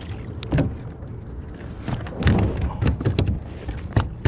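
Irregular knocks and thumps on a small boat as a silver bass is brought aboard, loudest about half a second in, around two seconds in, and again near the end.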